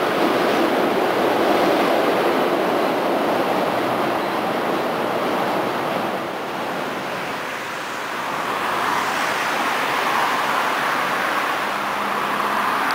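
Road traffic noise: vehicles passing on the street, a loud rush that eases about halfway through and swells again as a car drives by near the end.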